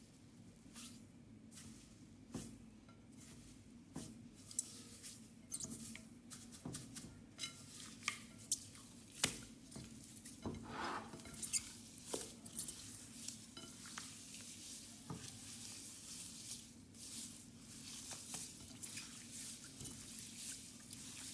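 Homemade no-glue slime squeezed and poked by hand: scattered wet clicks and squishes, sparse at first and getting more frequent, over a faint steady hum.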